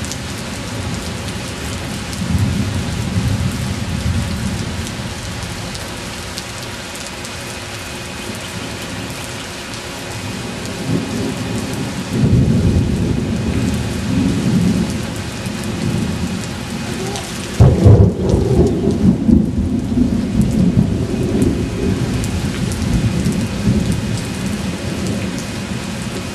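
Thunderstorm: steady rain with low rolling thunder. A sudden loud thunderclap comes about two-thirds of the way in, followed by rumbling.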